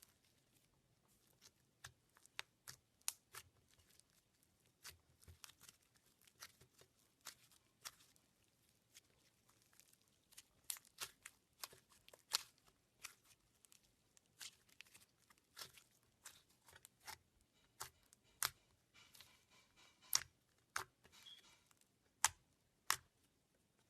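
Slime being worked by hand, giving a run of sharp, irregular clicks and pops, with a brief crinkly stretch a little past the middle.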